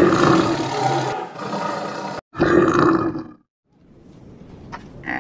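Animal roar sound effects: a roar that cuts off abruptly about two seconds in, then a second, shorter roar, a moment of silence, and a faint sound building near the end.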